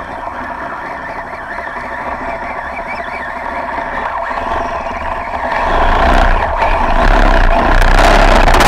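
Steady engine drone heard underwater, growing louder about six seconds in.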